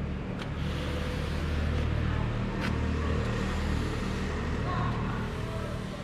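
A steady, low engine or motor hum with a noisy hiss over it, a little louder in the middle.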